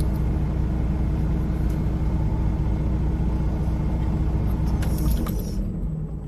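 Semi-truck diesel engine running with a steady low drone. About five seconds in there is a short hiss of air, and the drone drops away as the engine stops.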